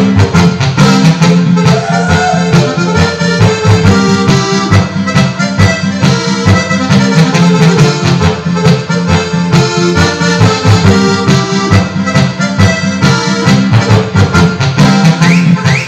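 HDS Pro.Sound.2 sound module playing back a MIDI file: an accordion-voiced tune with bass and a steady beat. It cuts off near the end.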